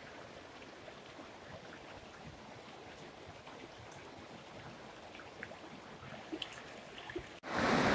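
Mountain river flowing over rocks and boulders, a steady low rush of water with a few faint clicks. Near the end the sound cuts out for an instant, then a much louder rush of noise starts abruptly.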